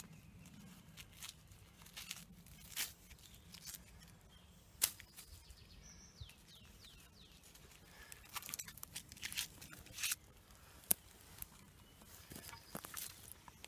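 Irregular crackles, rustles and sharp snaps of dry grass and twigs on a forest floor, handled and stepped on close by, a few of them sharper and louder than the rest.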